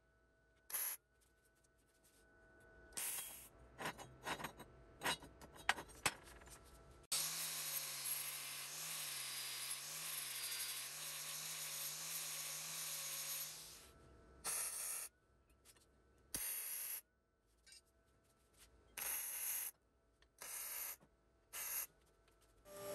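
MIG welder tack-welding a steel tube to its steel base plate: several short bursts of arc crackle, each under a second, and in the middle one continuous stretch of about seven seconds with a low wavering hum under it.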